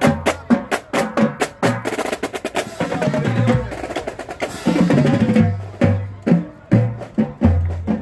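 A marching band drumline playing a cadence: snare drums, tenor drums and tuned bass drums. The first couple of seconds are rapid, sharp stick clicks, then deep bass drum notes at several pitches join the snare and tenor strokes in a steady march rhythm.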